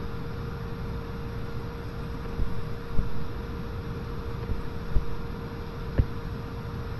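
A few soft thumps of a stylus tapping a tablet screen as points are marked, over a steady electrical hum and hiss.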